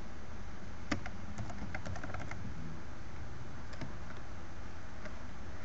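Typing on a computer keyboard: a single keystroke about a second in, a quick run of keystrokes until just past two seconds, and one more near four seconds, over a steady low hum.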